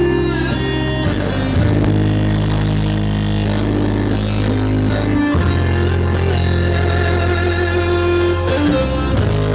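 Music played loudly through a sound-check rig of three speaker boxes with six subwoofers on a class GB amplifier at a 2.7-ohm load. Long, held bass notes change every few seconds under a guitar-like melody.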